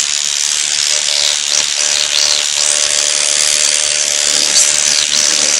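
Dermapen electric microneedling pen running, a steady motor buzz with a loud even hiss as its needles work across the skin of the face.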